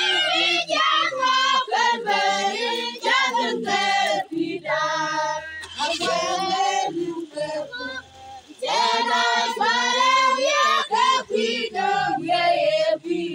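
A group of women singing together in short, repeated phrases, with a brief break about eight seconds in.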